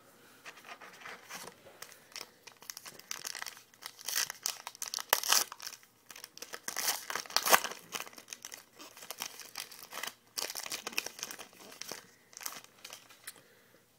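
Trading card pack being torn open, its wrapper crinkling and crackling in irregular bursts, loudest around the middle.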